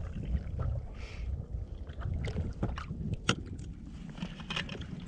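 Hot drink poured from a vacuum flask into a cup, then a few light clicks and knocks as the flask is handled and its cap screwed back on, over a steady low rumble of wind and water.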